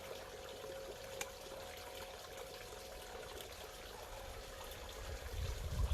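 Steady bubbling, trickling water. A single sharp click about a second in, and a low rumble rising near the end.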